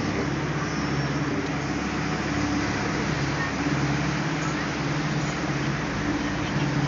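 Sightseeing boat's engine running with a steady low drone, heard from on board over an even rushing noise.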